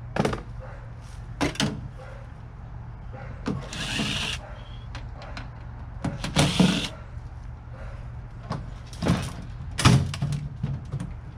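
Screws being run out of an old microwave's sheet-metal shell with a power drill, in two short runs of about a second each, with knocks and clanks of metal between them.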